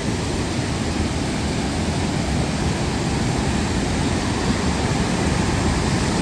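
Steady rush of water from a small waterfall.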